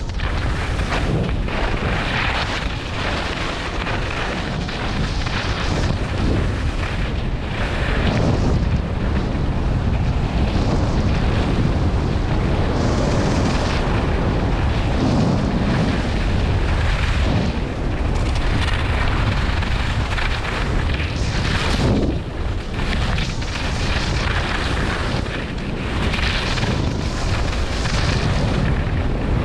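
Wind buffeting the microphone over skis scraping and hissing on packed groomed snow during a fast downhill run: a continuous noisy rumble that swells and eases every few seconds.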